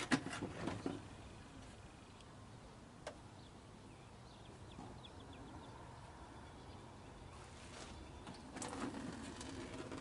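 A few sharp knocks in the first second and a single click about three seconds in, over a quiet background with faint bird chirps in the middle.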